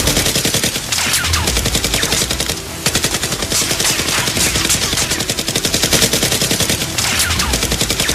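Rapid automatic gunfire, shot after shot with barely a break: a firefight of machine-gun fire that does not stop.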